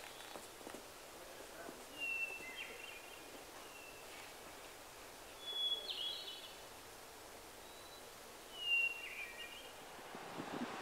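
A small songbird whistling about four short phrases a couple of seconds apart, each a high clear note stepping down to a lower one, over a faint steady hiss.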